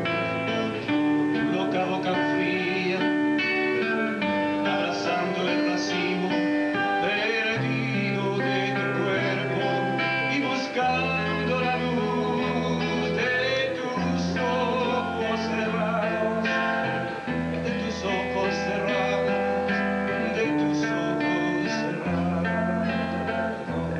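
Two acoustic guitars played together, picking and strumming a song with a moving bass line, with a man singing over them.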